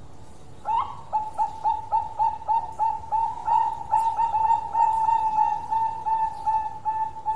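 Zebra dove (perkutut) singing: after a short pause, a fast run of short, clear coos, about three to four a second, that later run together into a rolling trill.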